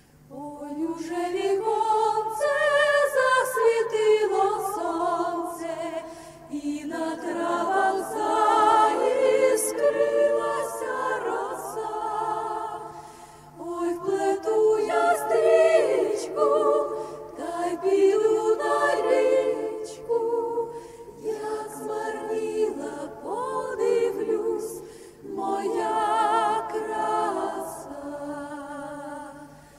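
A vocal group singing a slow Ukrainian folk song in close harmony, choir-like and a cappella, in long phrases with short breaks between them.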